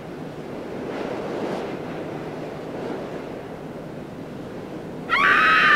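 Title-sequence sound effects: a steady rushing, wind-like whoosh, then about five seconds in a sudden, loud, high shriek like a scream that slides down in pitch as it fades.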